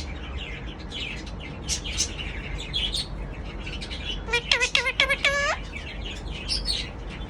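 Pet parrot chirping and tweeting in quick short high notes, with a run of four or five louder, pitched calls about four and a half to five and a half seconds in.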